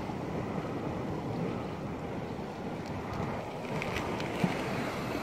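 Sea surf washing around coastal rocks, with wind on the microphone: a steady rushing noise, with a single short knock about four seconds in.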